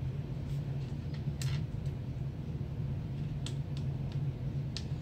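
A steady low hum throughout, with about three short faint scratches as a wooden toothpick scrapes the coating off scratch-art paper.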